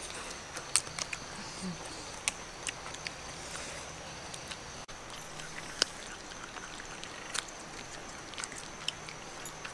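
Eating sounds: scattered small clicks, cracks and smacks from hands tearing steamed duck apart and mouths chewing, over a steady high-pitched drone in the background.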